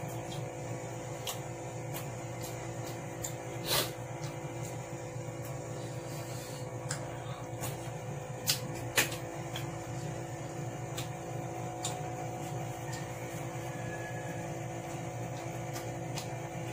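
Chewing of sausage and noodles: scattered short clicks and smacks from mouth and fork, the sharpest about four and nine seconds in, over a steady room hum.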